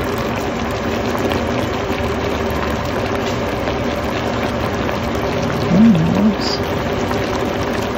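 Taro and coconut-cream stew (ginataang gabi) simmering in a steel pot, a steady bubbling. About six seconds in there is a brief hummed voice sound.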